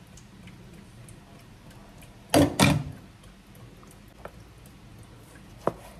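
Two sharp knocks in quick succession on a plastic cutting board, followed later by two faint clicks, as a knife and food are handled on the board.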